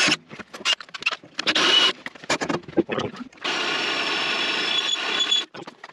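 Cordless drill with a small bit drilling a pilot hole into a Wood-Mizer sawmill's painted metal frame. The motor starts and stops in short bursts for the first three seconds or so, then runs steadily for about two seconds before stopping.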